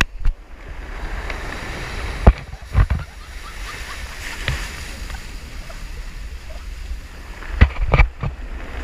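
Surf breaking and washing over a rocky shore, with wind rumbling on the microphone. A few sharp knocks cut through, the loudest about a second and a half before the end.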